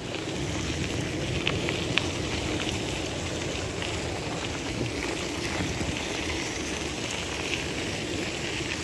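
Bicycle tyres rolling over a gravel trail: a steady crunching hiss, with a few sharp clicks of loose stones about two seconds in.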